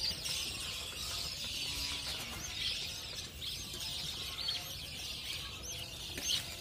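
A colony of budgerigars chattering: a dense, steady twitter with many short, high chirps.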